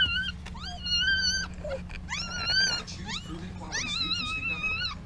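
Newborn Pomsky puppies crying: four high-pitched cries, each sliding up at the start and then held for about half a second to a second, over a steady low hum.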